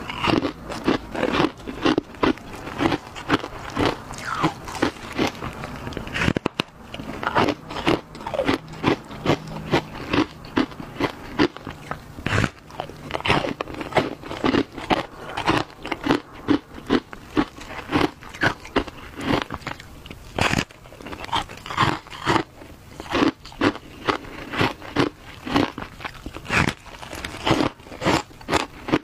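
A person crunching and chewing mouthfuls of a frozen shaved-ice block dusted with matcha powder, in a steady run of crisp crunches about two to three a second.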